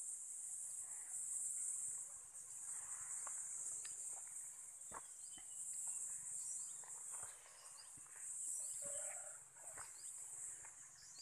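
Insects buzzing in a high-pitched chorus that swells and fades every two to three seconds, with scattered short clicks and knocks.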